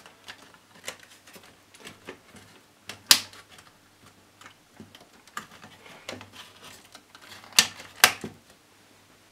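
Small clicks and taps of a circuit board and metal chassis being handled as the board is pressed back onto its standoffs. A sharp click comes about three seconds in and two more close together near the end.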